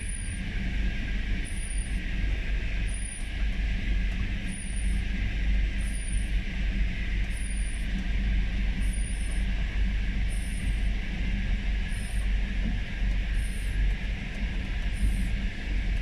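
Steady low rumble of a vehicle driving on a rough dirt road, heard from inside the cab, with a short high chirp repeating about once a second.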